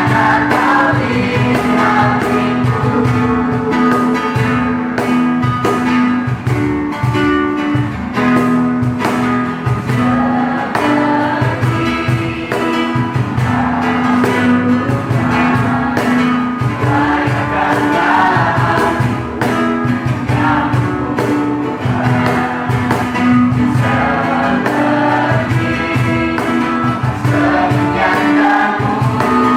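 A Christmas praise song performed live, with a group of voices singing over a band with guitar and a steady beat.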